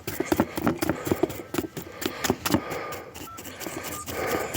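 Heavy breathing close to the microphone, mixed with scattered clicks and knocks.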